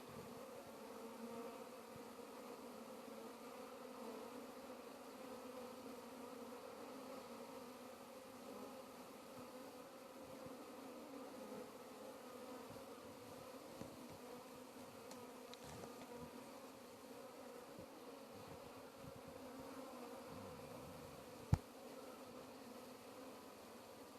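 A honeybee colony humming steadily inside its hive, a faint low drone with a higher overtone. A single sharp click comes near the end.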